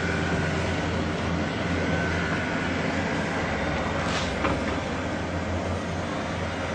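A steady low rumbling hum over a constant hiss, the kind of unexplained rumble reported as a 'strange sound'. About four seconds in, a brief swish stands out.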